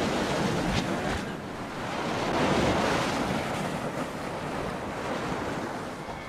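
A rushing, whooshing noise with no clear tone that swells and ebbs, loudest in the middle, with a few faint clicks near the start; the sound track is played backwards.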